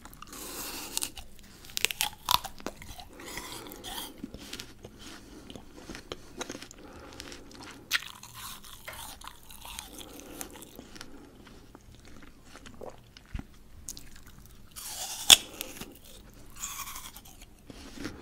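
A person biting into and chewing firm raw fruit, with irregular crunches between softer chewing. The loudest crunch comes about three-quarters of the way through.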